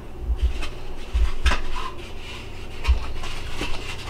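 A metal spoon knocking and scraping in a saucepan as thick chili is dished into a bowl, with several sharp clinks and some dull thumps.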